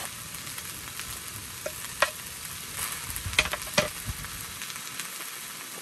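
Sliced onions frying in oil in a pan, sizzling steadily as they cook down. A utensil clicks against the pan several times between about one and a half and four seconds in.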